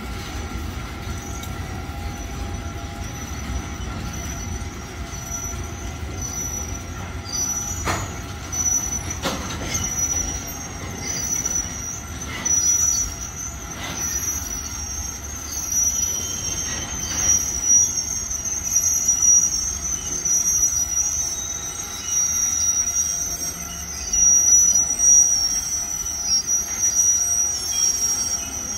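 Freight train of loaded stone hopper cars and boxcars rolling past, its steel wheels squealing in a steady high-pitched whine over a low rumble, with a few sharp clanks about eight, nine and fourteen seconds in.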